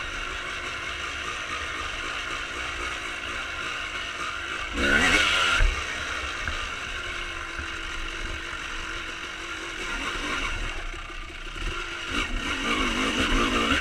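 1995 Honda CR250R single-cylinder two-stroke dirt bike engine with a full Pro Circuit exhaust, under way on the trail. It revs hard and rising about five seconds in, settles to a steadier, lower note, then picks up again near the end.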